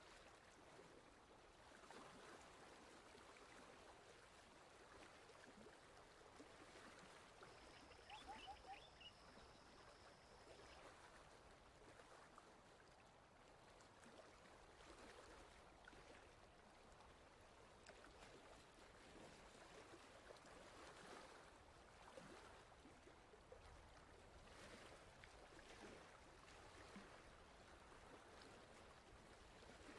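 Near silence: faint steady hiss, with a brief thin high tone and a few tiny chirps around eight to ten seconds in.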